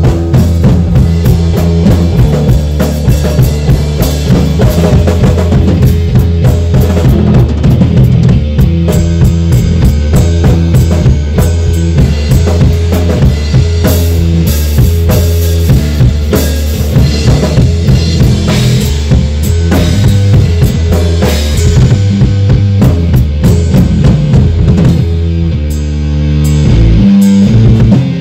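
Drum kit played with kick drum, snare and cymbal strikes in a steady groove over sustained low notes from accompanying instruments. The music shifts near the end.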